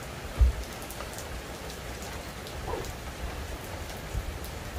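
Steady rain falling, with faint scattered drip ticks and one low thump about half a second in.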